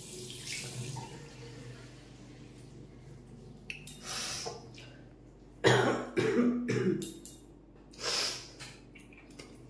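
A woman with a cold coughing and clearing her throat to bring up mucus: a few short breathy bursts, then three harsh coughs in quick succession a little before six seconds in, and another sharp burst about eight seconds in.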